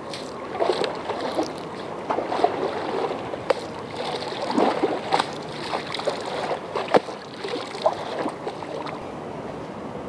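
Small waves lapping and sloshing against a concrete wall, with irregular splashes and a few sharp slaps of water.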